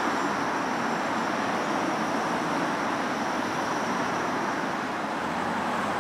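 Steady road-traffic noise, an even hiss that eases slowly toward the end.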